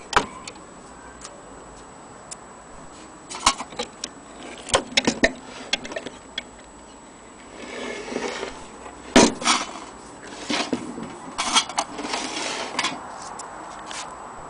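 Irregular metallic clicks, taps and knocks as the parts of an antique French slate and marble mantel clock are handled on a wooden table. Stretches of rubbing and rustling come about halfway through and again near the end.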